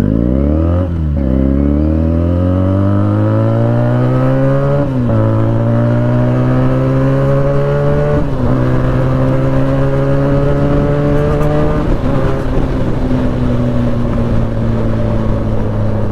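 Benelli 300 motorcycle's parallel-twin engine accelerating up through the gears: the engine note climbs, drops at each of four upshifts a few seconds apart, then holds steady at cruising speed.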